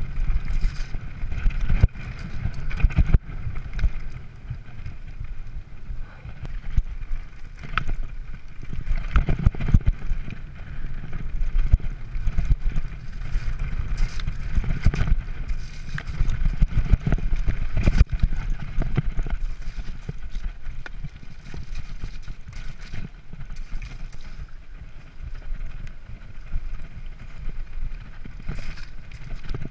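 Mountain bike rattling over a rough, stony singletrack at speed: tyres crunching on gravel and stones, with frequent sharp knocks from the bike jolting over rocks, under a steady low rumble of wind on the microphone.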